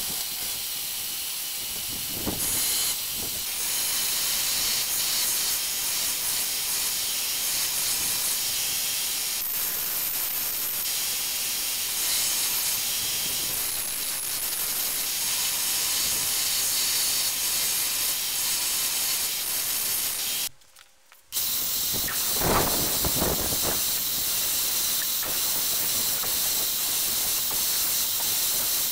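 Belt grinder running with a forged steel double bit axe head pressed against the abrasive belt: a steady high hiss of grinding. The sound cuts out for about a second about two-thirds of the way through, then resumes.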